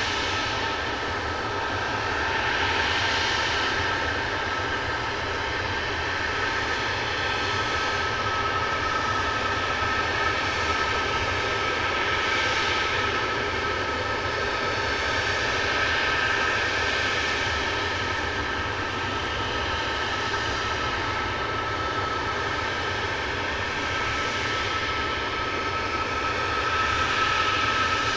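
Tu-22M3 bomber's NK-25 turbofan engines idling on the ground: a steady jet whine with a high whistling tone, swelling slightly now and then.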